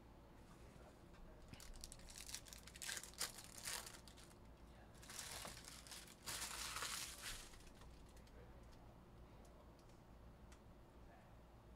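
Foil trading-card pack wrapper crinkling and tearing as the pack is ripped open and the wrapper handled. It comes in a run of crackly bursts over several seconds, loudest for a second or so past the middle, then dies away to faint room noise.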